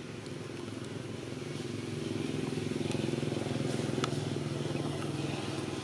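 A motor vehicle's engine running with a steady hum, growing louder about two seconds in and easing off near the end.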